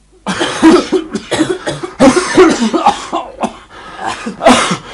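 Repeated fits of coughing, one burst after another: a smoker's cough.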